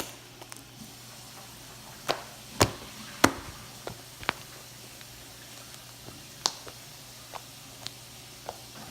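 Slime being pressed and worked by hand, giving a series of sharp, irregular clicks and pops as trapped air bursts, the loudest a little after two and three seconds in.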